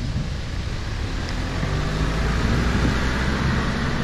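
A motor vehicle passing close by: its engine hum and tyre noise swell from about a second and a half in and ease near the end, over a steady low rumble.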